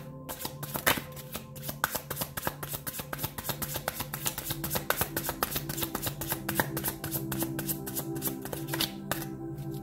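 A deck of cards being shuffled by hand, passed from one hand to the other, making a rapid run of light papery clicks that stops shortly before the end. Soft background music with sustained tones plays underneath.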